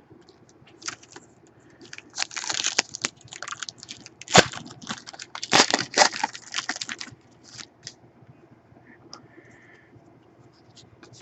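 Foil wrapper of a trading-card pack crinkling and tearing open in crackly bursts, most of them in the middle, followed by a few light clicks as the cards are handled.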